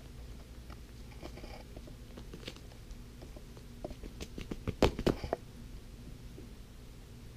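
Pomeranian puppy mouthing and pulling at a ring toy on carpet: scattered small clicks and taps of teeth and toy, with a quick cluster of sharper knocks about five seconds in.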